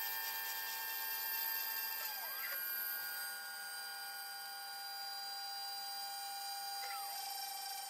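CNC router's 2.2 kW water-cooled spindle whining steadily as it mills quarter-inch aluminum plate, a set of high, even tones with two brief pitch sweeps, one about two seconds in and one near the end. The machining is played back sped up fourfold, which raises its pitch.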